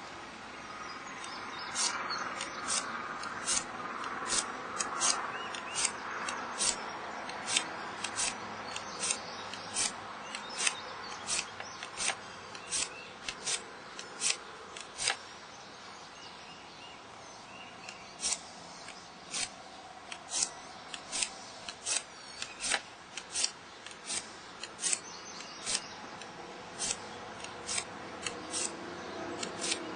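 Metal file scraping in short strokes along the bevel of a steel two-blade broadhead, putting a fresh edge on a blade with flat spots and nicks. The strokes come steadily at about one or two a second, with a pause of a few seconds about halfway.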